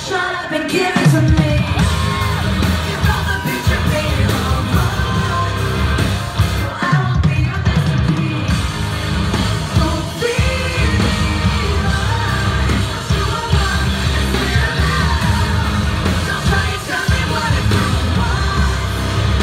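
Live rock band playing loud, with a heavy low end under a singer singing and yelling, heard from within the audience.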